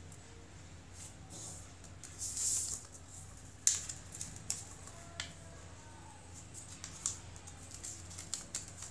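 Craft paper being folded and creased by hand: a rustle about two and a half seconds in, then a few sharp crinkles and taps against the table, over a steady low hum.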